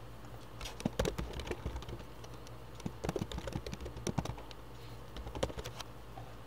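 Typing on a computer keyboard in three quick bursts of keystrokes with short pauses between.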